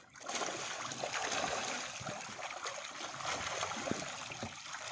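Water churning and splashing continuously as a dense mass of fish thrashes at the surface of a fish-cage net that is being gathered up.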